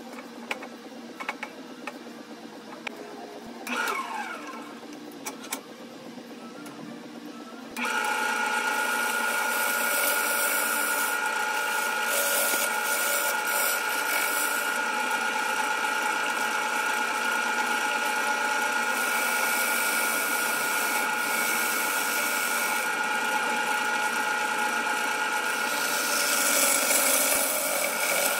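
Wood lathe spinning an aromatic cedar bowl blank while a bowl gouge cuts it: a steady machine whine with the hiss of the gouge shearing the wood. It starts abruptly about eight seconds in, after a few clicks and knocks.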